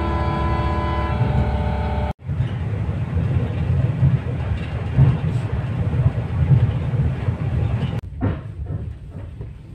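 Train sounds in three cut-together shots. First a steady hum with several held tones, cut off sharply about two seconds in. Then a train running with a continuous low rumble, and from about eight seconds in, quieter irregular knocks and clacks.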